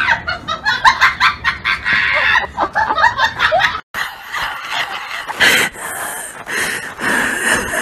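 A group of young people laughing and snickering in quick, choppy bursts. The sound cuts off suddenly a little under four seconds in and is followed by a run of higher, wavering sounds.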